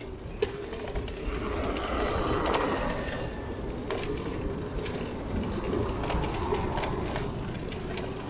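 Ticking of a bicycle's rear freewheel hub as the rider coasts, with irregular clicks and rattles over steady city street noise.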